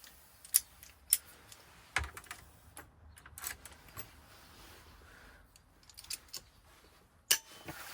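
A few scattered sharp metal clicks and taps, with quieter handling rattles between them, as a key is handled and clamped in a key-cutting vise.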